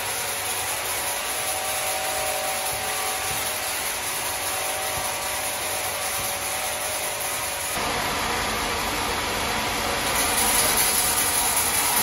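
Sawmill machinery cutting timber: a steady saw-on-wood noise with a faint hum under it. It grows fuller about eight seconds in and louder again near the end.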